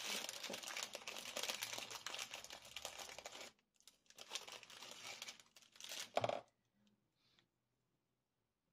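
Crinkling and rustling of craft supplies being handled while small flower stamens are prepared, in two stretches of a few seconds each, the second ending in a short knock.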